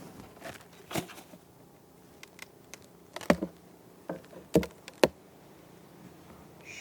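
Honeybees buzzing faintly around an opened hive, with a few sharp knocks and cracks from the wooden hive parts being worked. The loudest knocks come about three, four and a half and five seconds in.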